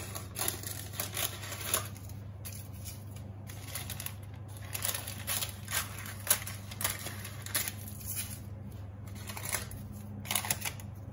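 Kitchen scissors snipping through baking paper in irregular cuts, with the paper crinkling and rustling as the excess lining is trimmed from the baking dish. A steady low hum runs underneath.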